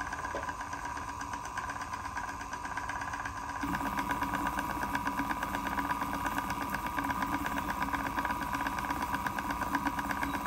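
Electric Eel Wheel electric spinning wheel running, its motor and spinning flyer making a steady whir with a fast, even pulse as wool is spun onto the bobbin. It grows louder and fuller about three and a half seconds in.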